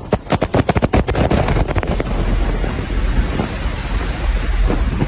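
Loud rushing wind roaring into an aircraft cabin through a passenger door that has come open in flight, with heavy wind buffeting on the microphone. A fast run of thumps fills the first two seconds, then the rush continues steadily.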